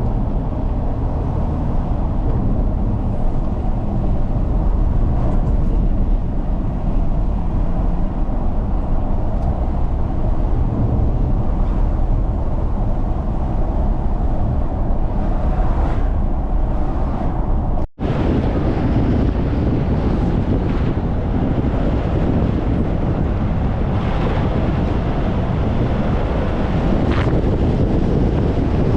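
A car driving along a road: steady engine and tyre noise, low and continuous. It cuts out for an instant about two-thirds of the way through, then carries on a little brighter.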